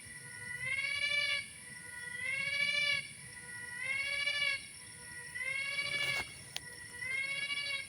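An unseen forest animal giving a wailing call five times, about once every one and a half seconds. Each call rises and then falls in pitch and sounds much like a crying baby: 'oek oek'.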